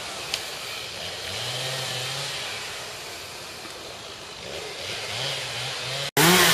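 A small petrol engine revving up and easing off a few times over a steady background noise. It breaks off abruptly near the end.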